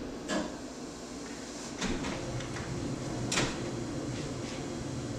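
A cardboard shipping box being handled and opened: a few sharp knocks and scrapes of the cardboard, the loudest about three seconds in, over a low steady hum.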